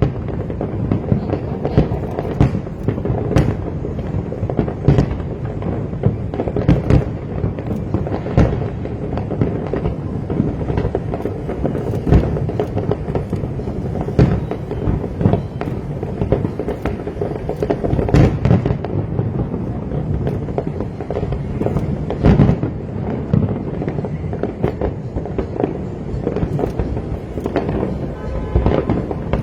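Fireworks display: a dense, continuous rumble of bursts with many sharp bangs and cracks, several a second.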